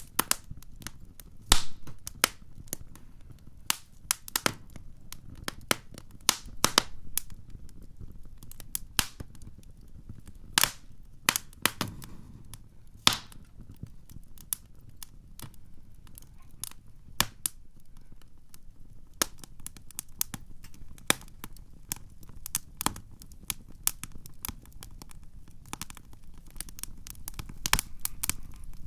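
Wood campfire crackling: irregular sharp pops and snaps, a few much louder than the rest, over a low steady rumble of the burning fire.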